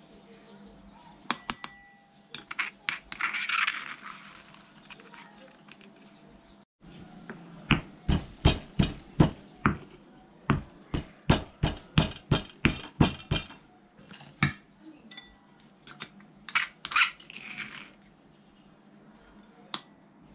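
Stone pestle pounding boiled jackfruit seeds in a stone mortar: a steady run of sharp knocks, about three a second, from about halfway through for some six seconds, then scattered single knocks. Near the start a metal spoon clinks and scrapes as seeds are spooned into the mortar.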